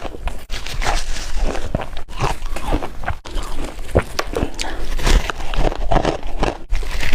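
Chunks of refrozen shaved ice being bitten and chewed, a dense run of irregular crunching and cracking.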